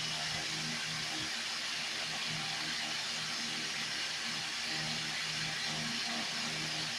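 Aquarium air pump and filter running: a steady hiss of air and water, with a low hum that comes and goes every second or so.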